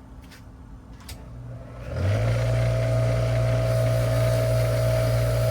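Small handheld electric grinding tool spinning up about two seconds in and running at a steady high speed, grinding down the part so that it fits.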